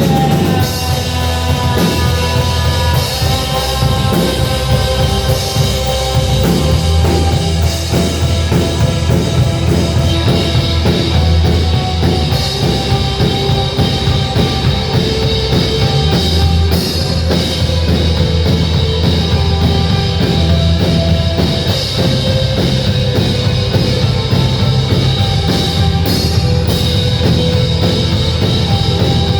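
Rock music with a full drum kit, bass and sustained guitar tones, played continuously at a steady loud level.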